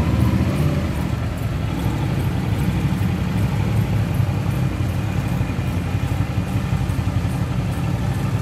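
Cruiser motorcycle engine running steadily at low speed as the bike creeps along with its landing-gear wheels down.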